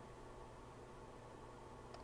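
Near silence: room tone with a faint steady hum and hiss, and a faint click near the end.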